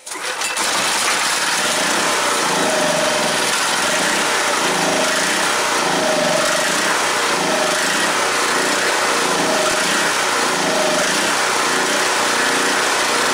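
Proforce 3125 portable generator's small gasoline engine catching on a pull start and settling into a steady run. This is its first test run on a freshly cleaned carburettor and fuel system.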